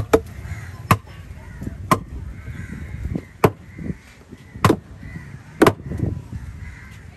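A heavy knife chopping through fish: six sharp chops, about one a second.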